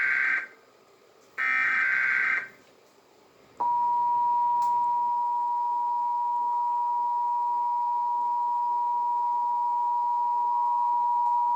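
Emergency Alert System tones: the end of one SAME header data burst and then a second full burst, each about a second of rapid digital warble. About a second later the two-tone EAS attention signal (853 and 960 Hz) starts, a steady dual tone lasting about eight seconds that cuts off abruptly.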